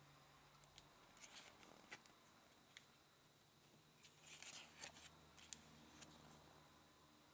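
Faint rustling and soft ticks of a small paper booklet being handled and its pages turned, with a longer rustle about four seconds in.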